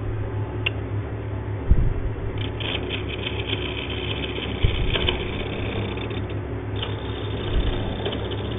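Electric motor of a wood lathe running with a steady hum. Intermittent scratchy strokes of a hand hone are drawn along a turning chisel's edge to touch it up.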